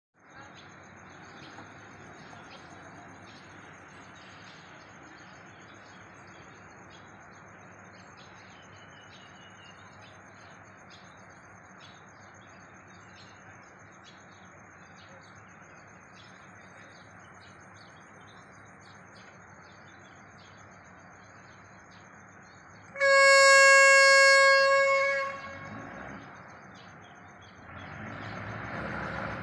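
Diesel train's horn sounding one steady single-note blast of about two seconds, as the local train is given the signal to depart. Before it, birds chirp faintly over a low steady background, and near the end the engine noise begins to rise as the train starts to move.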